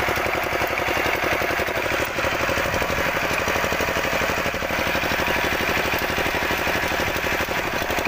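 Kamco power tiller's single-cylinder diesel engine running steadily, with a fast, even knocking beat.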